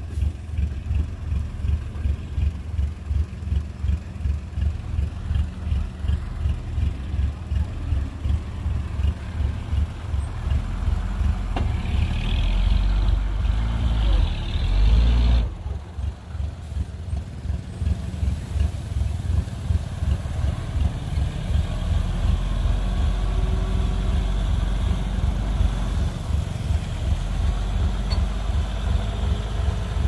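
Heavy diesel engine of earthmoving machinery running with a fast, low throb. It grows louder and harsher until about halfway through, then drops off abruptly and settles back into steady running.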